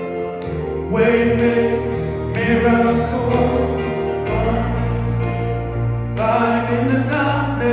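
Gospel worship music: a voice sings drawn-out phrases over held accompaniment chords, and a deep bass note comes in about halfway.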